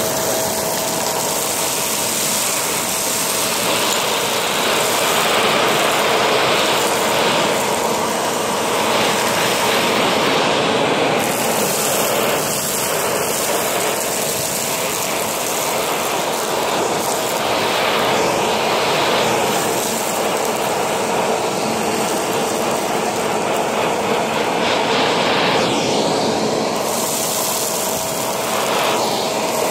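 Shark vacuum cleaner running steadily with its hose and crevice tool, sucking fine dust and wood shavings off carpet: a continuous rush of air with a faint steady whine that fades a few seconds in and returns near the end.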